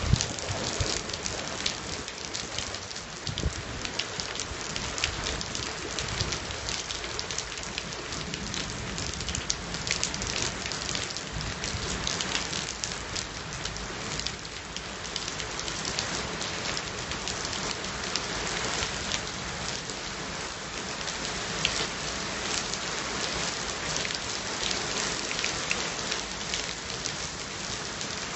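Steady rain during a thunderstorm, with many individual drops striking close by as sharp ticks over a continuous hiss.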